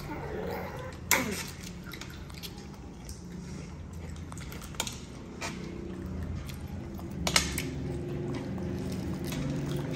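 Cutlery clinking against dishes on a glass table: a few short sharp clicks about a second in, around five seconds and a louder one after seven seconds, over a steady low hum.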